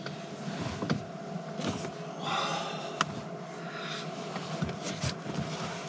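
Steady hum of the in-car fridge and the just-started heater running. Rustling of bedding and a few knocks as a person shifts and sits up on a bed inside a car.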